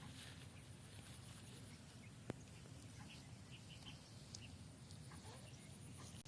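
Near silence: faint outdoor ambience with a single sharp click a little over two seconds in and a few faint short chirps.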